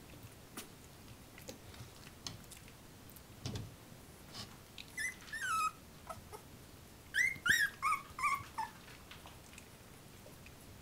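A young puppy whining: one falling whine about five seconds in, then a run of four or five short falling yelps about two seconds later, over faint rustling.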